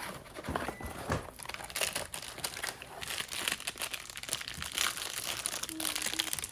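Plastic packaging crinkling and rustling in irregular bursts as a hard disk drive is unwrapped and taken out of its packaging.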